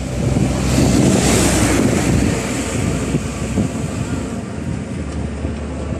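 Pickup truck engine running, with wind buffeting the microphone; the wind noise is loudest in the first couple of seconds.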